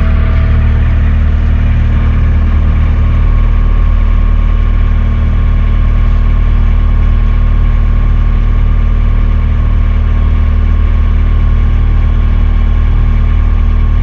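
Bobcat skid-steer loader's diesel engine idling steadily while still cold after a hard cold start, heard from inside the cab.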